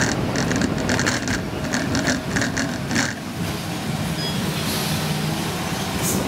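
Bus driving, with steady engine and road noise and a run of rapid rattling clicks, about three a second, through the first half.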